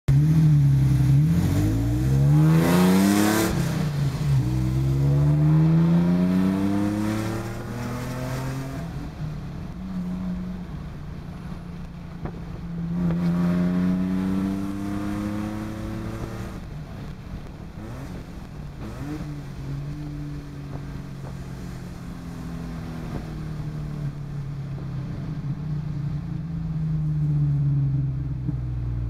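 Supercharged Toyota FJ Cruiser 4.0 L V6, with long-tube headers and an aftermarket exhaust, heard from inside the cabin with the windows down. The engine revs up hard and the pitch drops abruptly at each upshift, about three seconds in and again around eight seconds. It pulls again briefly, then settles into steadier cruising with a light rise in revs near the end.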